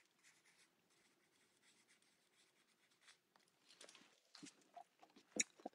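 Very faint scratching of a pen writing a signature on the back of a photo print, with a few soft handling clicks near the end.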